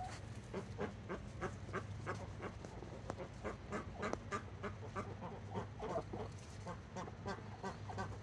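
A small flock of domestic ducks quacking in short, low calls, several a second, while they eat and drink.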